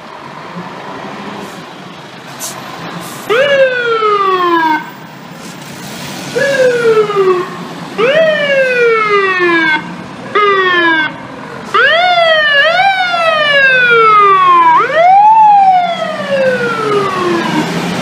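FDNY fire truck siren sounded as the rigs pull out of quarters on a run: a series of whoops, each rising quickly and winding down over a second or two. It starts about three seconds in, and the whoops come closer together and louder toward the end.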